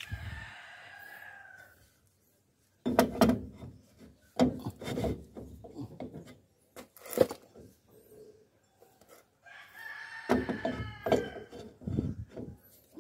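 Steel brake drum knocking and scraping as it is worked by hand over the rear brake shoes and onto the wheel hub, with several sharp clunks. A long, drawn-out animal call sounds at the start and again about ten seconds in.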